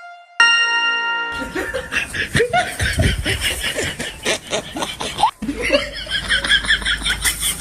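A long electronic start beep sounds, then several people laugh, chuckling and snickering, over a second brief pause.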